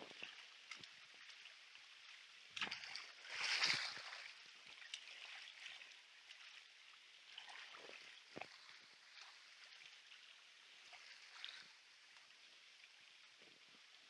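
Shallow hot-spring water flowing through stone-lined pools, a faint steady rush. Scattered light knocks and a louder brief noisy burst about three and a half seconds in.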